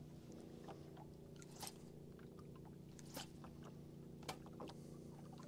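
Near silence: a faint steady hum with a few soft clicks scattered through it.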